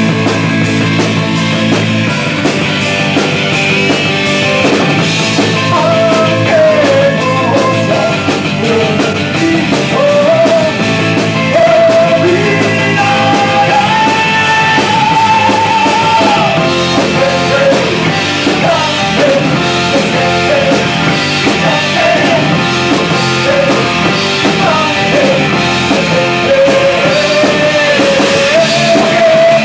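Live rock band playing loud: drums and guitars under a melody line that holds and bends its notes.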